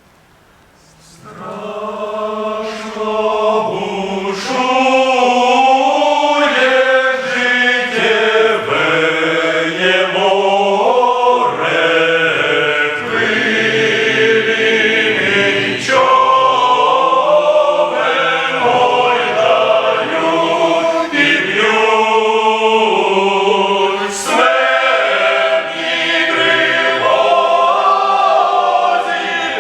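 Men's choir singing a hymn in Ukrainian in several parts, coming in about a second in.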